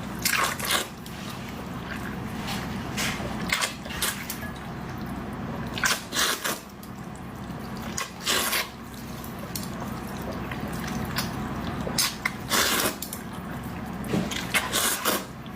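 Close-up wet eating sounds of someone eating thin noodles: irregular slurps and mouth smacks every second or two, over a faint steady low hum.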